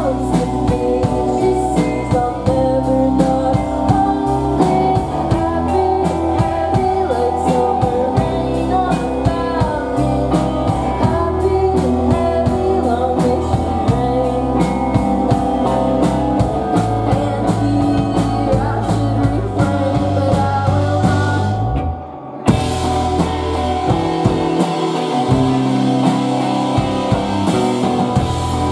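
Indie rock band playing live: electric guitars, bass and drum kit, with lead vocals over them. The band cuts out for a moment about three-quarters of the way through, then comes straight back in.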